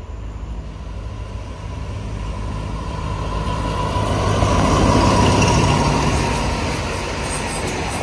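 Diesel-hauled passenger train approaching and passing close by: the locomotive's engine and the wheels running on the rails grow louder, are loudest about five seconds in as the locomotive goes by, then ease a little as the coaches roll past.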